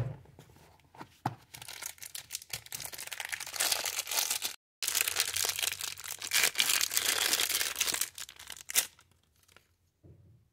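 Clear plastic wrapping crinkling and tearing as a folding knife is pulled out of it by hand, in dense, crackly rustling.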